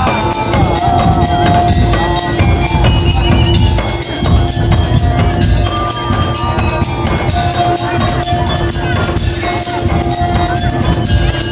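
Daul percussion ensemble playing loud music: drums and jingling tambourine-like percussion keep a dense beat under a held melody line and a steady drone.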